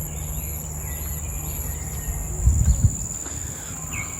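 Steady high-pitched insect drone with a faster pulsing buzz above it, over a low rumble that swells into a couple of low thumps about two and a half seconds in.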